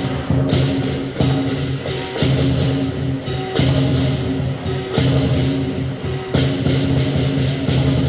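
Lion dance percussion ensemble: a large lion drum beaten with clashing cymbals and a ringing gong, played in loud repeated phrases that restart about every second and a half.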